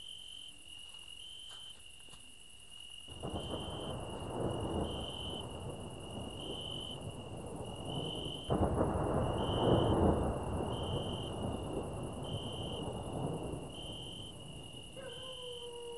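Crickets chirping, a steady high pulse about once a second, under a deep rumble like distant thunder. The rumble sets in suddenly about three seconds in, surges again about halfway through, then slowly fades. Near the end a falling, pitched hum begins.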